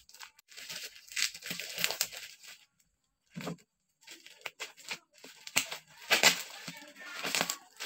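Scissors cutting into a taped plastic parcel wrapping, with the plastic crinkling and tearing in bursts. There is a pause of about a second and a half near the middle, and the crinkling is loudest in the second half.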